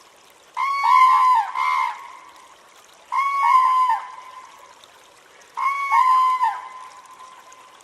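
A crane calling three times, about two and a half seconds apart. Each call is a loud, resonant, pitched note about a second long; the first is followed by a short extra note.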